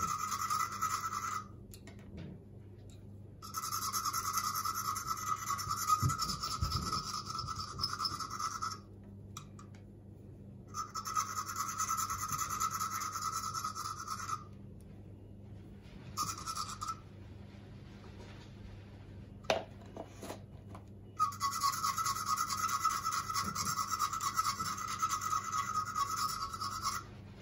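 A knife blade scraping the enamel coating off enamelled copper wire, in five spells of rapid scraping with short pauses between, the longest lasting about five seconds. The bare copper is being cleared so it will take solder.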